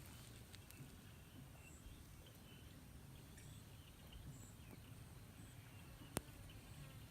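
Near silence: faint outdoor ambience with a few short, faint high chirps and one sharp click about six seconds in.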